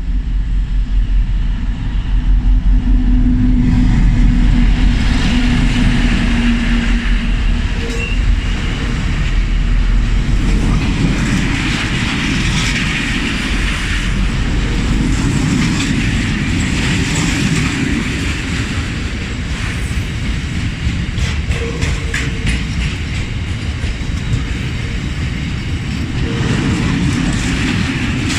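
Class 60 diesel-electric locomotive passing with its engine running, followed by a long rake of wagons rolling by, wheels clicking over rail joints. A few brief wheel squeals come through, about eight seconds in and again near the end.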